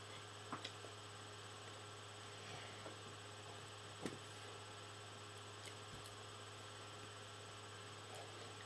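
Steady low electrical hum with a few faint clicks, the clearest about four seconds in.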